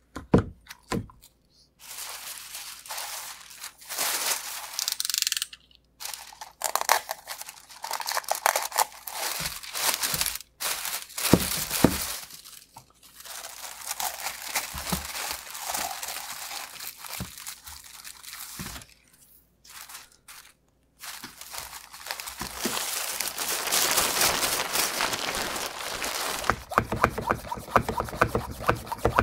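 Plastic film and a plastic vacuum bag crinkling and rustling as they are handled and wrapped around a carbon-fibre layup. The rustling comes in irregular bursts with sharp crackles, densest in the last several seconds.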